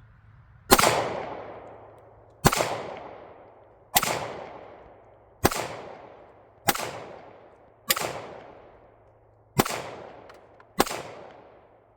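Eight single gunshots fired at a steady, unhurried pace about one to two seconds apart, each a sharp crack followed by a fading echo.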